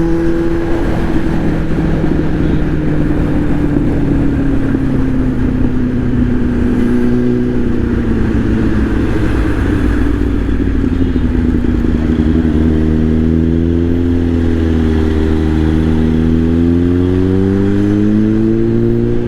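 Kawasaki inline-four superbike engine and exhaust running on the move at steady cruise. Its pitch slowly falls as the throttle is eased, then rises again near the end as the bike picks up speed.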